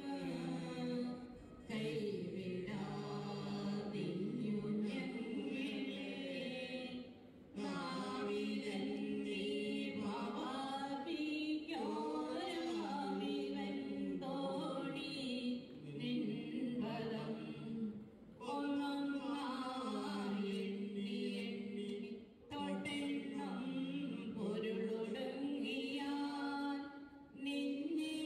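Voices singing a slow song in phrases a few seconds long, with short breaks between them.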